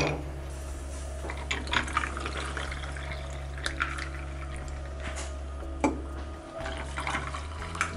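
Hot coffee poured from a glass carafe over ice cubes into mugs, the stream splashing, with a few sharp clinks of ice and glass against the mugs. A steady low hum runs underneath.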